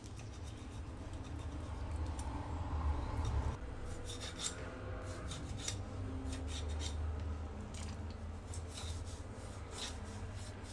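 Chef's knife scoring deep cuts into a whole raw chicken, the blade slicing through the flesh and scraping on a wooden cutting board, with scattered short clicks.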